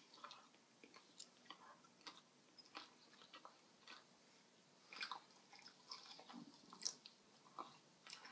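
Faint chewing of a chocolate-covered marzipan candy: soft, irregular mouth clicks and smacks, a few slightly louder about five and seven seconds in.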